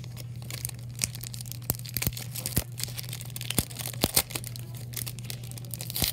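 Foil wrapper of a Pokémon TCG Unbroken Bonds booster pack crinkling and tearing as it is pulled open by hand, in irregular sharp crackles, over a steady low hum.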